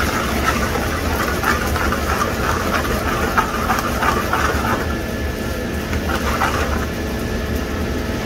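A metal ladle scraping and stirring thick bhaji in a steel pan, in irregular scratchy strokes that pause about five seconds in and come back briefly near six and a half seconds. Under it runs a steady low rumble.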